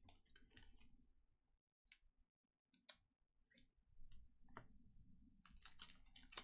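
Faint clicking and light crackle of trading cards being handled, with a few isolated sharp clicks about three to four and a half seconds in and a quicker run of small clicks near the end.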